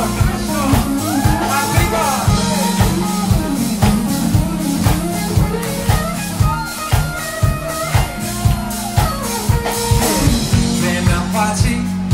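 Live band playing an instrumental passage: an electric guitar lead with notes that bend up and down, over bass and a steady drum beat.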